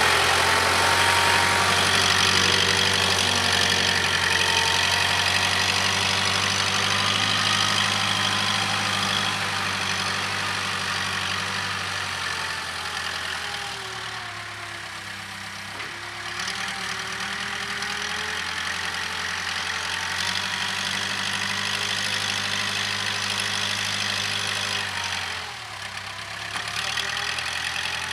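Case 580K backhoe loader's diesel engine running at working revs, with a high whine above the engine note. The revs sag and pick back up about halfway through, and again briefly near the end.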